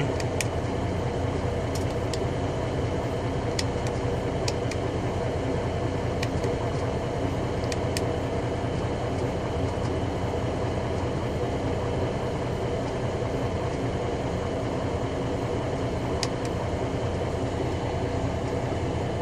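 Volvo semi truck's diesel engine idling steadily at low idle, about 600 rpm, heard from inside the cab, with a few faint clicks scattered through it.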